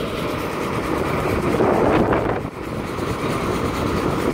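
John Deere 9600 combine running at close range, a steady mechanical drone that swells louder about halfway through, then drops briefly.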